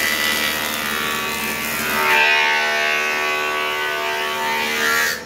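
Multipurpose woodworking machine running as a thickness planer, with pallet wood being fed through to plane it to an even thickness: a loud, steady whine with several tones together. The tone shifts about two seconds in, and the sound cuts off suddenly at the end.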